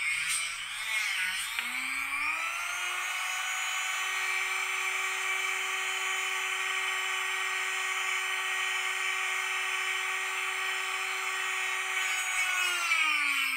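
Dremel rotary tool on a flex-shaft extension with a 1-inch cutoff wheel, cutting 1/8-inch smoked plexiglass. Its high whine wavers and sags under load at first, rises to a steady whine once the wheel is lifted off and spins free, then drops and wavers again near the end as cutting resumes.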